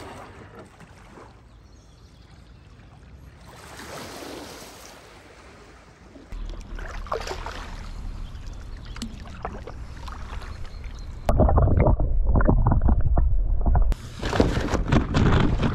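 Water splashing and sloshing from a stand-up paddleboard's paddle strokes on calm water. About eleven seconds in, a heavy low rumble like wind on the microphone takes over for a few seconds.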